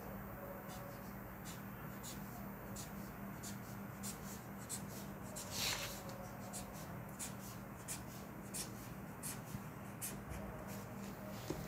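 Pen drawing and marking on a paper pattern against a plastic ruler: many short scratchy strokes and light ticks, with one longer, louder scratch a little past halfway. A steady low hum runs underneath.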